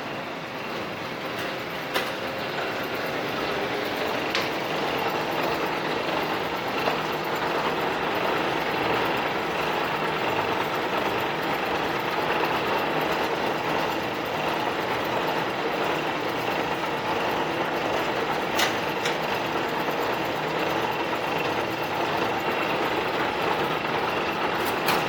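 A steady engine drone with a few faint clicks.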